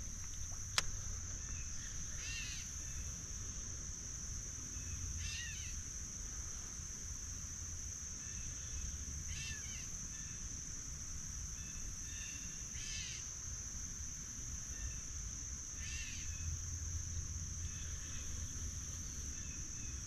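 Steady high-pitched insect chorus of crickets, with a bird giving a short call about every three to four seconds and a low rumble underneath.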